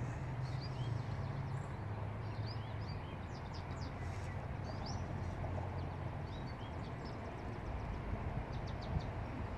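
Outdoor ambience: small birds chirping now and then over a steady low hum that fades about six seconds in.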